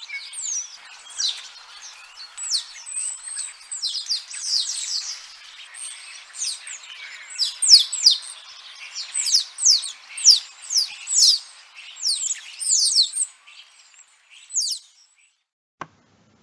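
Birds chirping and singing: many quick, downward-sliding high notes in a steady stream that stops about a second before the end.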